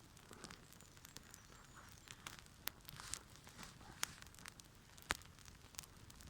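Small wood campfire crackling faintly, with scattered sharp pops and snaps, the loudest about five seconds in.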